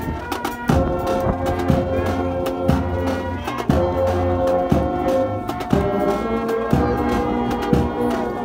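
Marching brass band of euphoniums and tubas playing in held chords, with a drum beating time under the brass.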